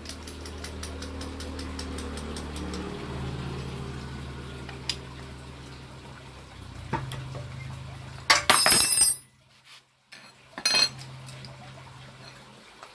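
Small metal carburettor parts clinking and rattling as they are handled for cleaning, over a steady low hum. Two loud, sharp noisy bursts come later, the first lasting about a second.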